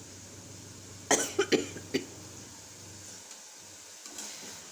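A person coughing, four quick coughs about a second in.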